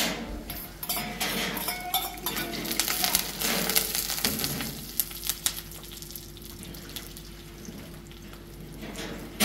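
Metal spoon scraping and clinking against a metal bowl and a frying pan as beaten eggs are poured in and stirred, with the eggs sizzling in the hot pan. The clinks come thick through the first half and thin out later.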